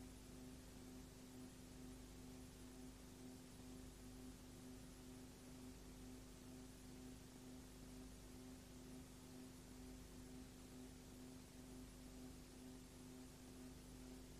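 Near silence: a faint, steady hum with hiss, and no other sound.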